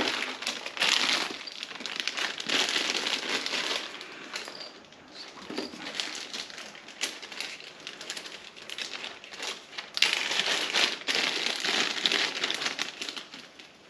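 Packaging crinkling and rustling as it is handled, in irregular bouts, with a quieter stretch in the middle.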